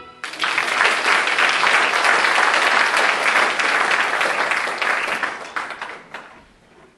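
Audience applauding at the end of a musical number, starting just after the final note, holding steady for about five seconds and then dying away.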